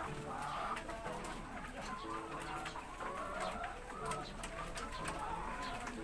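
A flock of caged laying hens clucking and calling over one another, with scattered sharp clicks among the calls.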